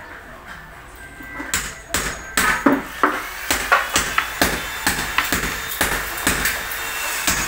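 Hammer striking wood: a quiet start, then a run of sharp blows about two or three a second, beginning about a second and a half in.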